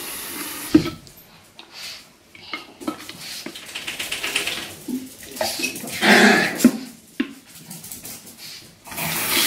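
Washing at a stainless-steel kitchen sink: scattered knocks and clatter against the sink and a splash about six seconds in, then the tap running steadily near the end.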